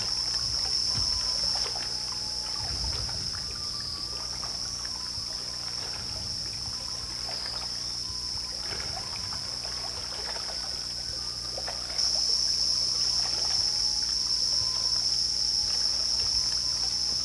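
Rainforest ambience: a steady, high-pitched insect drone with a few faint short whistles. It grows louder about twelve seconds in.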